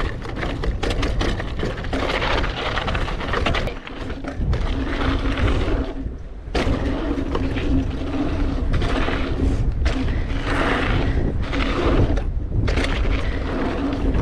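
Specialized Pitch hardtail mountain bike riding down a loose dirt and rock trail: tyres crunching over dirt and stones, with many sharp clicks and knocks from the bike rattling over rough ground. Wind rumbles on the microphone throughout.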